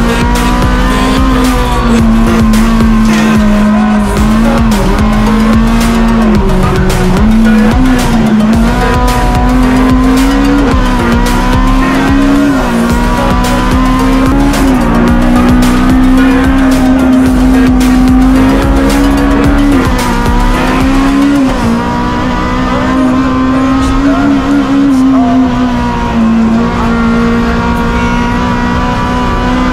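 Honda Civic Type R EP3 race car at full throttle, heard inside its stripped cabin: the four-cylinder engine holds high revs, its pitch dipping briefly at each lift or gear change and climbing again, with tyres squealing through the corners.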